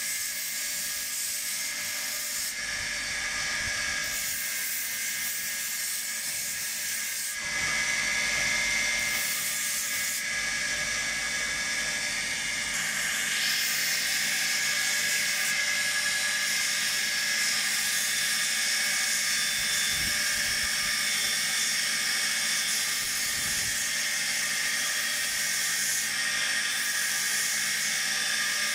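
Belt sander running with a steady hiss and faint whine as a rosewood walking-stick handle is pressed against the sanding belt. The sound steps up in loudness about seven seconds in and grows brighter and hissier a few seconds later as the wood bears harder on the belt.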